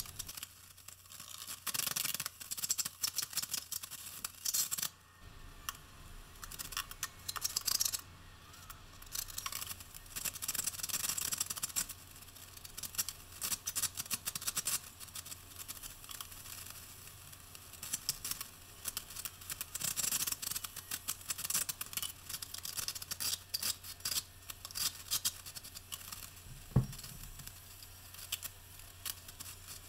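Rapid, irregular scraping and scratching of a trowel and putty knife spreading and scraping thinset mortar on Kerdi-board around a shower niche, sped up with the time-lapse. One sharp knock near the end.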